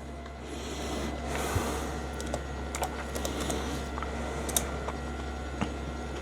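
Typing on an Nsyee foldable Bluetooth keyboard: soft, irregular key clicks with a few sharper taps.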